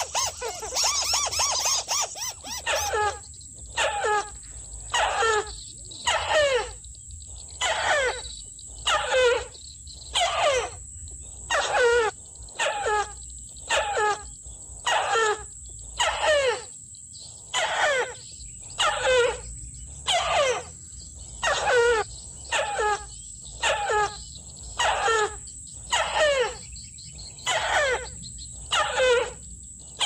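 Crake calls: after a brief burst of rapid chatter, a long, very regular series of loud downward-sliding notes, about one a second.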